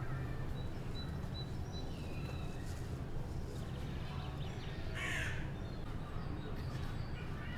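A single short, harsh animal call about five seconds in, over a steady low rumble of city background.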